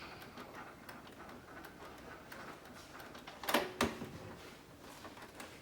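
Canon Pro9500II inkjet printer running a print-head cleaning cycle: faint mechanical ticking, then two sharp clacks close together about three and a half seconds in.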